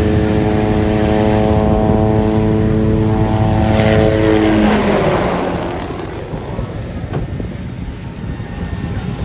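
Helicopter flying past: a loud steady engine and rotor tone for the first half, a rising hiss around the middle, then the tone stops and the sound drops to a quieter, rougher rumble as it moves away.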